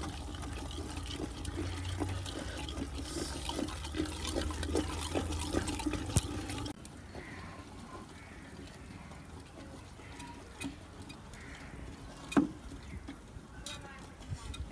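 A wooden masher churning and stirring thick, wet saag in an aluminium pot, a quick run of irregular sloppy strokes while the greens cook down and the last water dries off. A little under halfway through the sound drops abruptly to quieter stirring with a few sharp clicks.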